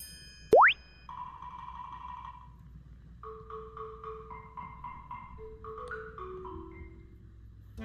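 Edited-in comic sound effects and music: a loud, quick upward glide about half a second in, then a held tone and a run of short mallet-like notes.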